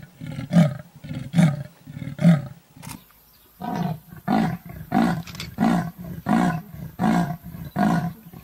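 Leopard's sawing call: a steady series of rasping grunts, about one every second or less. The series breaks off about two and a half seconds in, and a second series starts a second later.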